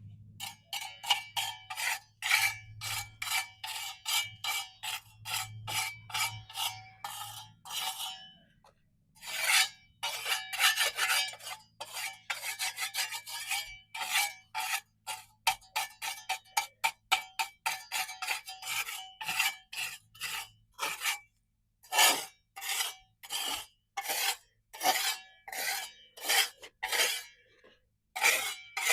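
A metal hand tool scraping hardened mortar off a pool's concrete surface in quick repeated strokes, about two to three a second, each with a faint metallic ring. There are short pauses about eight seconds in and again around twenty-one seconds.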